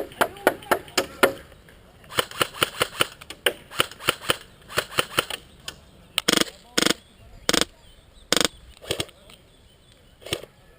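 Airsoft guns firing in quick strings of sharp shots, about five or six a second. Near the middle come four heavier, louder reports spaced a little over half a second apart, then scattered single shots.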